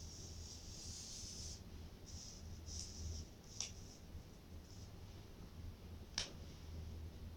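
Small paper cards being slid and brushed across a cloth surface by hand, in one longer scrape and then a few short ones, with two sharp clicks a few seconds apart. A low hum runs underneath.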